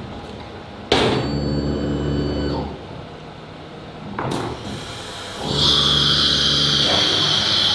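Industrial CNC router's automatic tool changer at work, with two sharp bursts of air from the pneumatic chuck and a low motor hum between them. About five and a half seconds in, a workshop air compressor starts up and runs with a steady hiss, a bit noisy.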